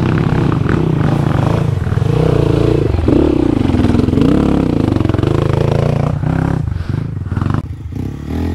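Dirt bike engine running under throttle, its pitch wavering up and down, easing off near the end.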